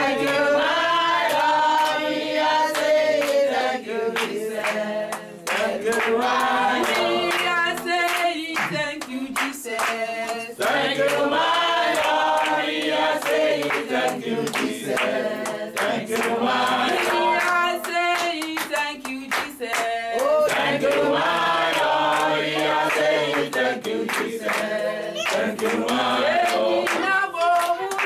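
A small group of people singing together, with hand-clapping along to the song.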